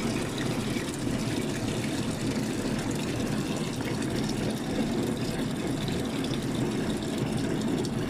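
Water pouring in a steady stream from the open dispensing tap of a frozen beverage machine's bowl and splashing into a container of water below, as the bowl is drained.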